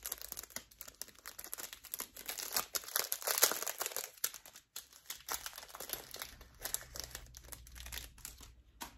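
Thin clear plastic packet crinkling as it is handled and opened to take out a fly: an irregular run of crackles, busiest about three seconds in, tailing off near the end.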